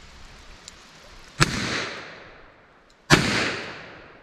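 .45 Colt revolver fired twice, about a second and a half apart, each sharp shot followed by a rolling echo that fades away.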